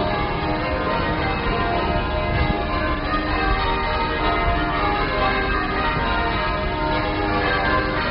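Church tower bells ringing continuously, many strokes overlapping into an unbroken clangour of ringing tones.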